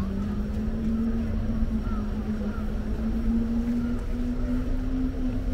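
Street traffic: a motor vehicle's engine humming at one pitch that rises slowly, over a steady low rumble of traffic.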